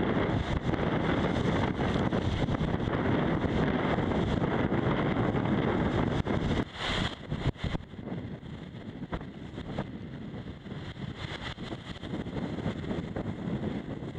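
Wind buffeting the microphone and water rushing past the hull of an IMOCA 60 racing yacht sailing fast in rough sea. About seven seconds in there are a few sharp knocks, and after them the rush is quieter.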